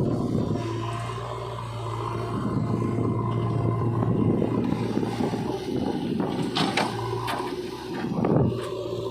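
JCB 3DX backhoe loader's diesel engine running steadily while the machine digs, with scraping and a few short clanks from the bucket and arm, and a louder knock about eight seconds in.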